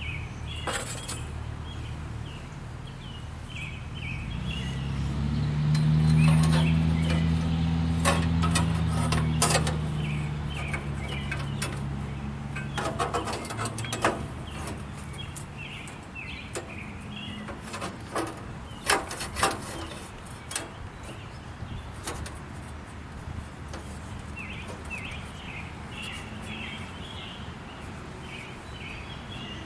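Small birds chirping. An engine sound swells and fades away in the middle, with a run of sharp clicks and knocks.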